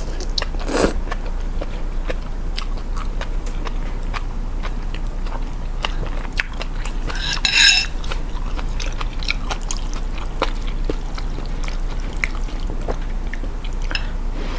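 A person eating beef noodle soup close to the microphone: chewing and mouth sounds with many short clicks of cutlery against the bowl, and a brief louder high-pitched sound about seven and a half seconds in. A steady low hum runs underneath.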